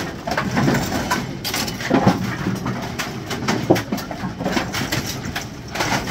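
Brunswick GSX pinsetter running through a cycle: irregular mechanical clattering and knocking as the deck and its pin holders move to set pins, with a couple of sharper knocks.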